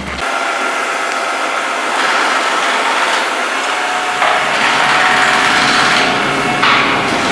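A machine running: a few steady whining tones over a rough, rasping noise, which gets louder about two seconds in and changes abruptly twice in the second half.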